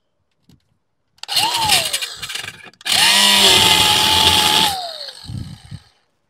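Cordless angle grinder with a cut-off wheel cutting metal on a rotary cutter's slipper clutch. It gives a short run about a second in that spins up and winds down. Then comes a longer cut of nearly two seconds, a steady motor whine under loud grinding, that winds down near the end.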